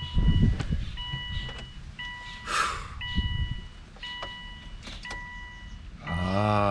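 Subaru Baja's warning chime, a steady electronic tone repeating about once a second, with a few knocks and rustles of handling. Near the end a low steady hum comes in.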